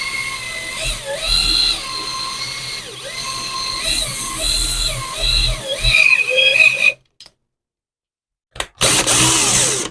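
Small electric drill boring into a plastic watchmaker's loupe, its whine dipping and rising in pitch as the bit loads up, then stopping about seven seconds in. A loud, noisy rasp lasting about a second follows near the end.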